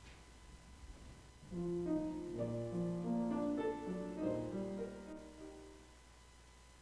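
A short phrase of keyboard music, a few held chords, starting about a second and a half in and fading out by about five seconds.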